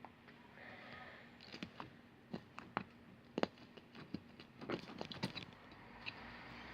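Slime being squeezed and stretched in the hands, making irregular little clicks and pops.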